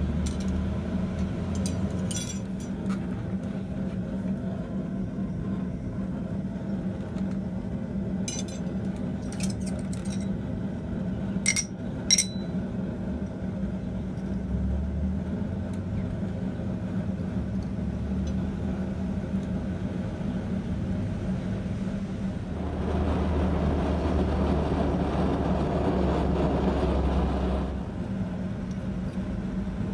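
Steel tongs and workpieces clinking on a steel anvil, with two sharp clinks a little before halfway, over a steady low hum. A louder rushing noise comes in for about five seconds near the end.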